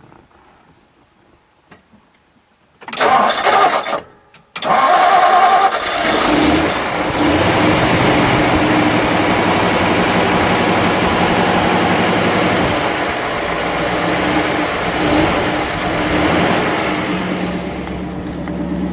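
1956 Ford Fairlane's 292 cubic inch Thunderbird Y-block V8 being started: the starter cranks about three seconds in, stops for a moment, then the engine fires and settles into a steady idle.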